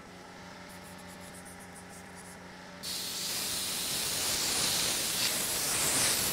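Compressed-air blow gun blasting onto a wet-sanded headlight lens: a loud, steady hiss of air that starts suddenly about three seconds in and keeps going. Before it, a low steady hum.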